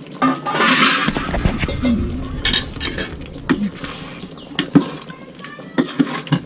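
Metal cooking utensils clinking and scraping against a cooking pot, with many short sharp clinks, after a rush of noise about a second long at the start.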